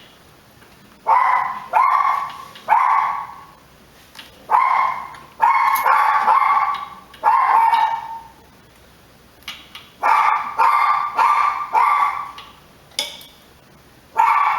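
A dog barking repeatedly, a dozen or so sharp barks in clusters of three to five with short pauses between.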